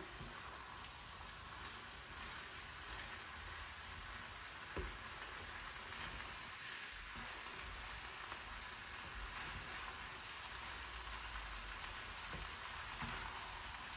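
Leftover fried rice with vegetables sizzling in a frying pan as it is stirred and turned with a spatula, with an egg frying in a second pan; a steady crackling hiss, with faint spatula knocks about five seconds in and twice near the end.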